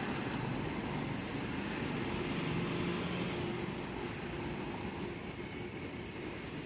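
Steady background noise with a low hum running under it.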